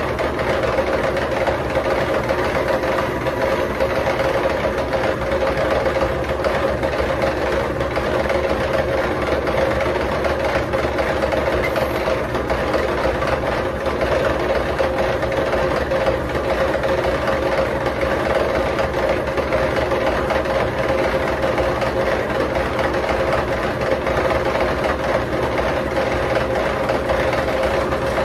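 Milling machine running steadily, with a constant mid-pitched whine over continuous machining noise, while it planes the flange face of an exhaust manifold.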